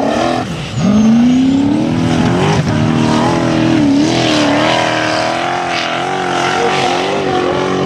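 Turbocharged LS1 V8 of a Formula Offroad buggy running hard at high revs. It drops off briefly about half a second in, climbs straight back, then holds high with the revs wavering up and down as the wheels spin and dig on a steep sand hill.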